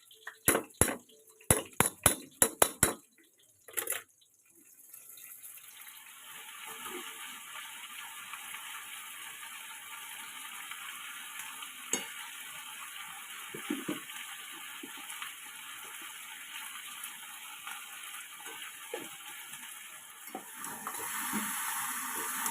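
A quick run of about ten sharp clicks. Then, a few seconds in, food frying in a pan starts sizzling and keeps sizzling steadily, with a few light clinks of a utensil against the pan.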